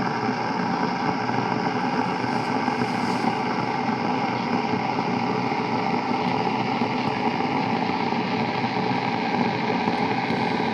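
Deerma DR035 electric kettle heating water in boiling mode, a steady rushing hiss as the water climbs from about 70 °C toward the boil.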